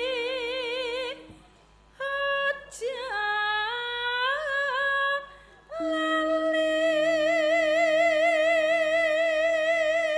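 A Javanese sinden (female gamelan singer) singing through a microphone in long held notes with wide vibrato. A first phrase is followed by a short pause and a phrase with stepwise ornaments, then, after another short pause, one long high held note of about five seconds.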